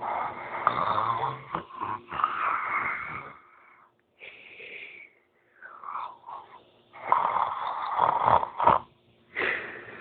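Person snoring in sleep: loud, noisy snores through the first three seconds or so, a short one about four seconds in, and another loud run from about seven to nine seconds, with near-quiet pauses between.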